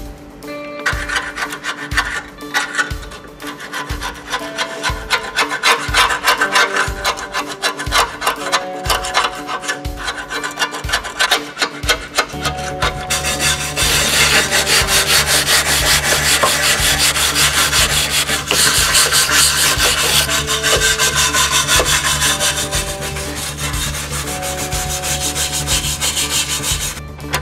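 Hand wire brush scrubbing rust off a 1969 Chevrolet Nova's steel front subframe and control arm in a fast run of rasping strokes, busiest in the second half. Background music with a steady beat plays under it.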